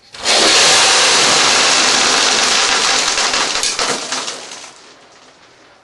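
A large load of M&M candies spills out of a wall cabinet and clatters onto the sink and countertop. It is a sudden loud shower of hard candy that starts within half a second, stays loud for about three seconds, then dies away over the next two.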